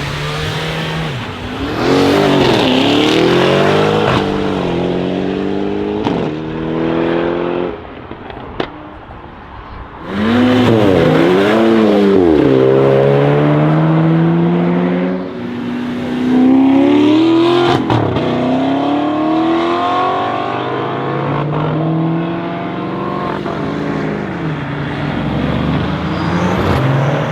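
Modified Mercedes-AMG E63 S twin-turbo V8 revving up and down and accelerating hard, its pitch climbing in steps through the gear changes, with a few sharp exhaust pops. It is quieter for a couple of seconds about a third of the way through.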